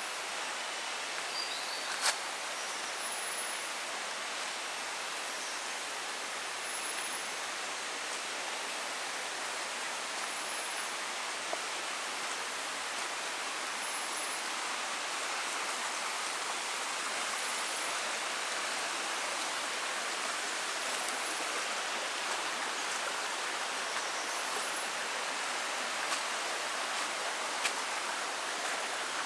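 Steady, even rushing ambience of tropical forest, with a short high-pitched call repeating about every three and a half seconds. A sharp click stands out about two seconds in, with a few fainter ones later.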